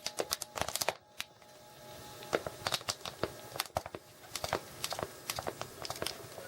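Irregular light clicks and crinkling rustles, scattered unevenly.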